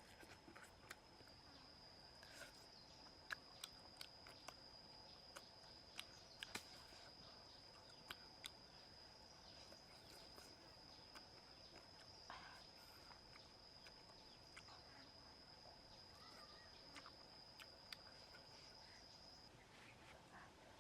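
Faint steady high-pitched insect drone, such as a cricket or cicada, that stops shortly before the end. Over it come scattered small clicks and chewing sounds of someone eating.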